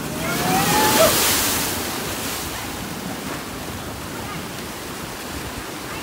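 A large ocean wave crashes over the rocks, surging to its loudest about a second in and then easing into steady foaming surf. A person gives a short rising cry as it hits.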